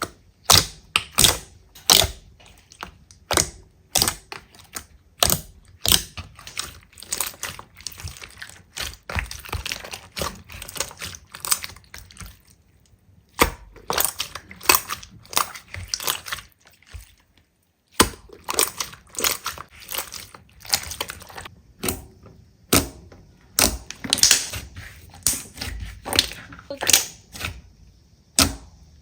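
Slime being pressed and squeezed by hand, giving a run of sharp clicks, pops and crackles several a second, with two short pauses around the middle.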